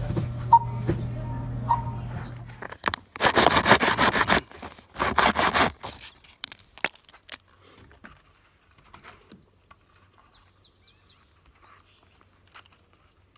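Checkout barcode scanner beeping twice over a steady low hum. Then a few seconds of loud rushing noise in bursts, followed by faint scattered clicks and handling sounds.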